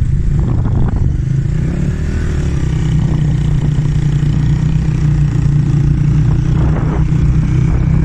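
Motorcycle engine running steadily under way, heard from the moving bike.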